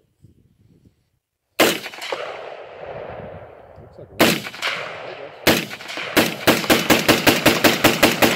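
AR-15 pistol with a two-and-a-half-inch barrel and an adjustable gas block firing: three single shots a second or so apart, each with an echoing tail, then a quick string of semi-automatic shots at about five a second. The gun is cycling and ejecting on every shot now that its gas block has been adjusted.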